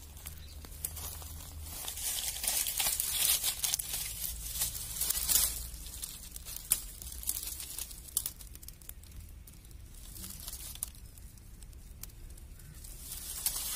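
Dry brush burning close up, crackling and hissing with many small pops. It is loudest for a few seconds about two seconds in, dies down, then picks up again near the end.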